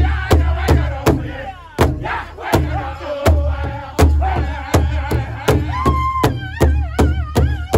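Powwow drum group singing in high voices over the big drum, struck together about three times a second. About six seconds in, one voice holds a high note, and then the singing slides up and down.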